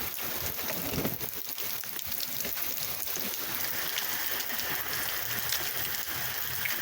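Heavy storm rain pouring steadily: an even hiss of dense raindrops hitting the ground and nearby surfaces.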